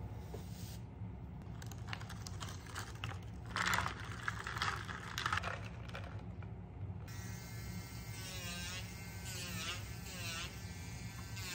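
An electric nail drill runs with a high whine whose pitch dips and recovers several times as the bit is pressed onto the nail, filing off gel nail polish. Before the drill starts there is some rattling and a few louder knocks.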